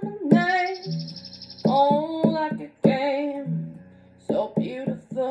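Singing over a plucked-string accompaniment, the voice in phrases of held, sliding notes with no clear words.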